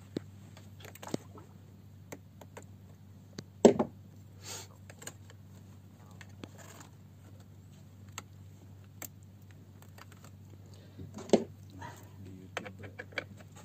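Scattered clicks, taps and rustles of hands and a tool handling parts on a Yamaha 150 hp outboard engine with its cowling off, during disassembly to reach the fuel injectors. There are two louder knocks, about four seconds in and near eleven seconds in, over a steady low hum.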